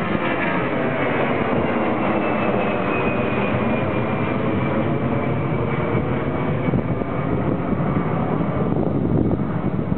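Airbus A320 airliner's twin jet engines at climb thrust just after takeoff, passing overhead and climbing away: a steady, loud rushing jet noise with a whine that slowly falls in pitch. The high end thins out near the end as the aircraft draws away.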